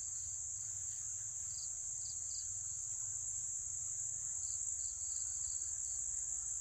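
Dusk insect chorus: a continuous high-pitched trill, with short chirps from another insect now and then, over a low steady rumble.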